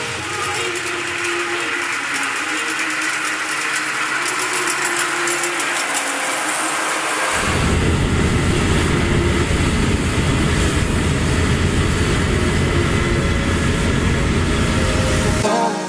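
Claas combine harvesters running while harvesting. At first a fainter machine hum; after about seven seconds a Claas Lexion 760 cutting close by gives a louder, deeper steady running noise.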